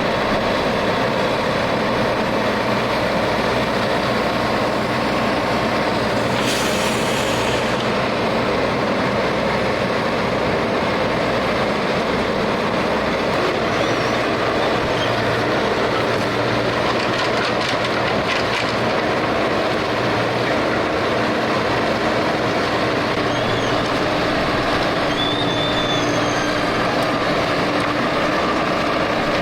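Heavy construction machinery, a diesel crane or backhoe, running steadily with a low engine hum. There is a short hiss about six and a half seconds in.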